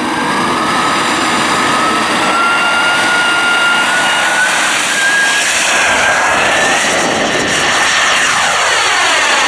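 Model jet turbine of a CARF J-10 RC jet running with a loud, steady whine whose pitch rises slowly. Near the end the sound takes on a sweeping, phasing quality as the jet passes low overhead.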